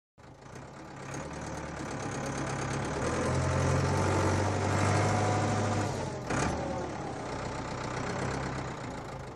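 Cartoon sound effect of a crawler tractor's engine running, starting abruptly, swelling toward the middle and easing off, with one short clunk about six seconds in.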